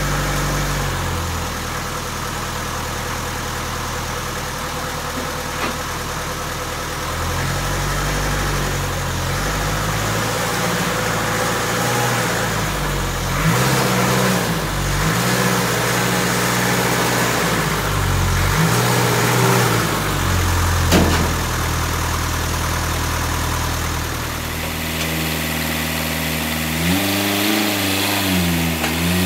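Land Rover Series 2A's 2.25-litre four-cylinder diesel engine running at low revs as the truck creeps forward, its pitch rising and falling several times as the throttle is worked, with a couple of sharp clicks.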